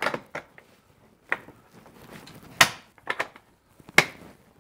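Hard plastic Makita tool case being packed and shut: a string of sharp clicks and knocks as the lid and catches snap closed, the loudest about two and a half and four seconds in.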